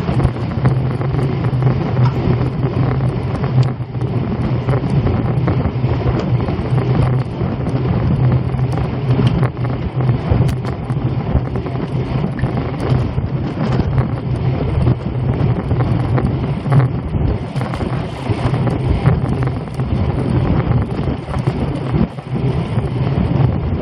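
Wind rushing over the microphone of a camera on a road bicycle riding at about 12–13 mph, with a steady low hum under it that fades about 17 seconds in.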